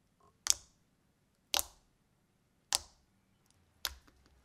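Clear-based slime with small beads being poked and pressed by fingers, giving four sharp popping clicks, about one a second, as the slime is pushed down and released.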